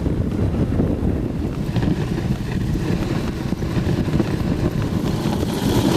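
Wind rumbling on the microphone during a dog sled ride, over the steady rush of the moving sled on snow.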